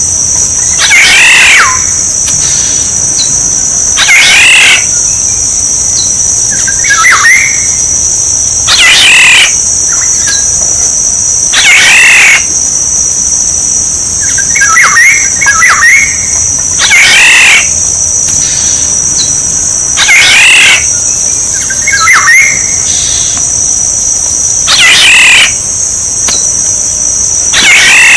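Oriole calling over and over, a loud call about every three to four seconds with softer whistled calls in between, over a steady high-pitched insect drone.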